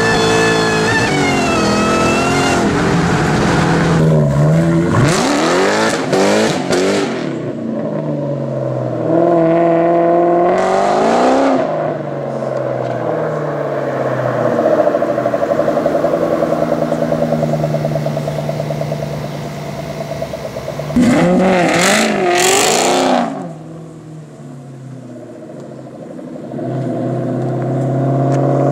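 2004 Ford Mustang SVT Cobra's supercharged 4.6-litre DOHC V8, through a catless exhaust with Dynomax bullet mufflers, accelerating hard several times. Its pitch rises and drops back through gear changes, between stretches of steadier running and a quieter dip.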